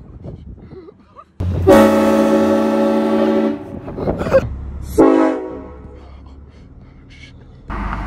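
Train horn blasting a loud, steady multi-note chord for about two seconds, then a second, shorter blast about five seconds in, with another starting right at the end.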